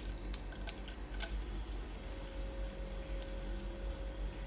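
Faint scattered crackles and clicks as dried red chillies are broken apart by hand and dropped into a pot of oil with fennel seeds.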